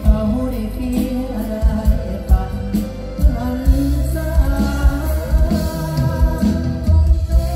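Live Thai mor lam stage-show music played loud over the PA: a singer's voice over a heavy bass and drum beat.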